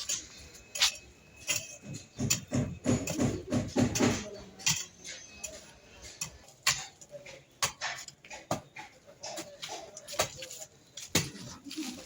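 Irregular clicks and light knocks, with faint voices in the background.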